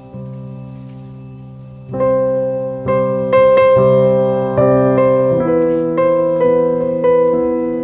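Slow background piano music: soft for the first two seconds, then a new note or chord struck about once a second, each ringing and fading.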